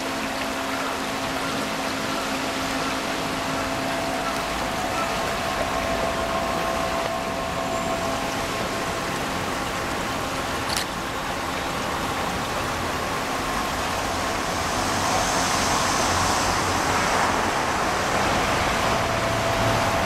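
Steady rushing of a shallow stream with a faint constant hum beneath it, growing a little louder near the end. A single sharp click about halfway through is the camera's shutter firing.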